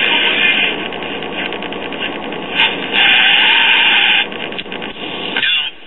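Small Japanese-made AM transistor clock radio hissing with static through its speaker as it is tuned across the band. The static swells louder twice, the second time with a wavering whistle about three seconds in, and it falls away sharply near the end. This is the set's power-up test after its capacitors were replaced.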